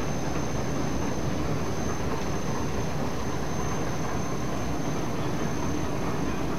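High-speed rotogravure printing press running: a steady mechanical noise from rollers carrying the printed film web at speed, with a thin, steady high whine over it.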